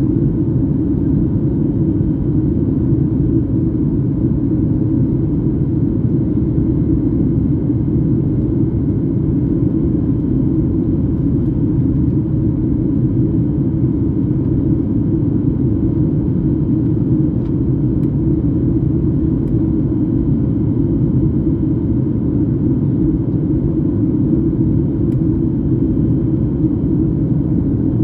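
Jet airliner cabin noise heard from a passenger seat: a steady low rumble of engines and rushing air.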